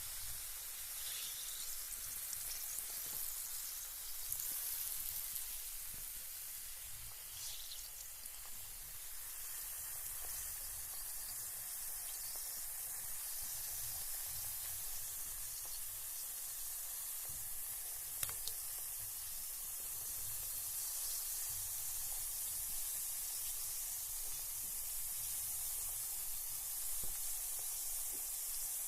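Carbonated bath bomb fizzing in bath water: a steady high hiss of bursting bubbles, with a few faint pops and ticks.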